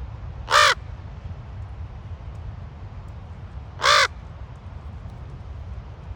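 Common raven giving two short, hoarse caws about three seconds apart, over a steady low rumble.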